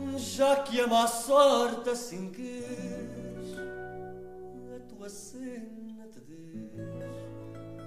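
Portuguese fado song: a voice holds and bends a sung note with vibrato in the first couple of seconds, over plucked guitar accompaniment that carries on beneath.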